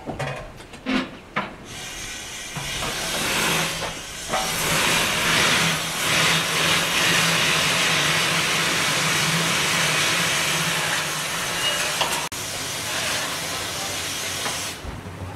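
An 0-4-0 saddle-tank steam locomotive's safety valves blowing off: a loud, steady hiss of escaping steam, the sign of a boiler at full working pressure. It starts about two seconds in after a few short knocks and cuts off just before the end.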